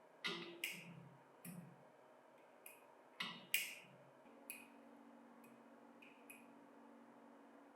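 Irregular sharp clicks and light knocks of small metal parts and tools being handled, about a dozen, the loudest about a second and about three and a half seconds in. A faint steady hum starts about four seconds in.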